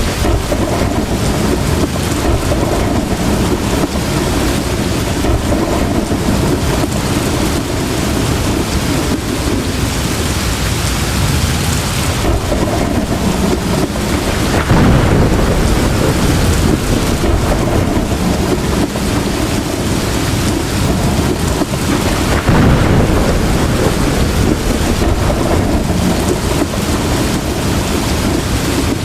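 Heavy tropical rain pouring steadily, with thunder rumbling underneath. The rumble swells louder about halfway through and again near three-quarters of the way in.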